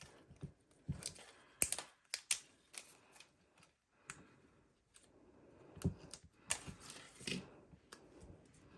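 Small irregular clicks and taps with light paper rustling from handling die-cut cardstock pieces and applying glue dots.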